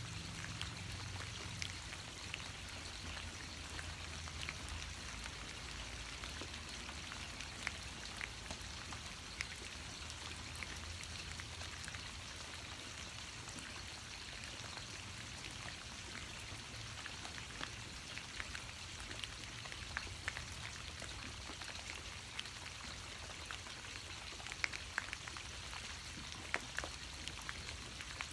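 Steady rain falling, a continuous hiss with scattered individual drops ticking close by, more of them near the end.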